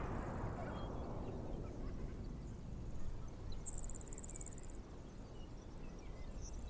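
Faint outdoor ambience with an insect trilling: one short, high, pulsing buzz about four seconds in, after a hiss fades away over the first couple of seconds.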